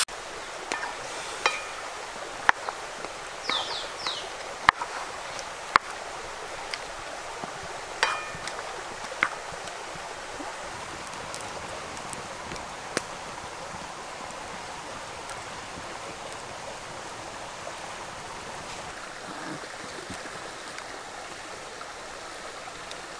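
Chicken cooking in a wok over a wood fire: a steady hiss of simmering and sizzling, with sharp cracks from the burning firewood every second or so through the first half.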